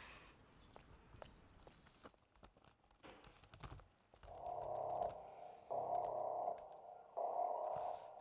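Light clicking of typing on a laptop keyboard. From about four seconds in, a buzz starts in pulses just under a second long with short gaps, three times, like a phone vibrating on a desk with an incoming call.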